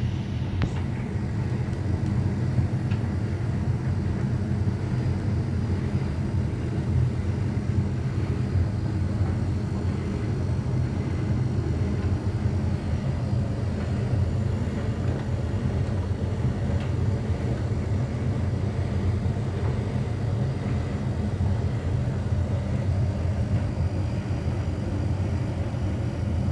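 Electrolux EW8H357S heat pump tumble dryer running a drying cycle: a steady low hum and rumble from the motor and heat-pump compressor as the drum turns.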